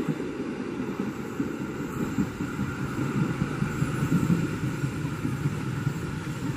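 A passenger train's coaches rolling away on the rails: a steady rumble of wheels on track that slowly fades as the train recedes.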